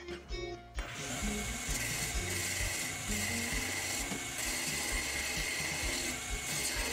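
Wood lathe running while a hand-held turning tool scrapes the end of a spinning poplar blank, a steady rasping hiss with a steady high tone, starting about a second in.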